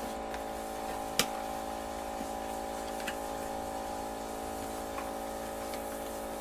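Rubber straps being unwound from a fiberglass mold shell, giving a few sharp clicks and knocks, the sharpest about a second in, over a steady hum.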